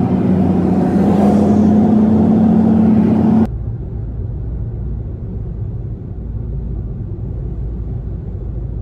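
Car driving along a road: steady engine and road noise with a droning hum. About three and a half seconds in, the sound cuts abruptly to a lower, duller rumble.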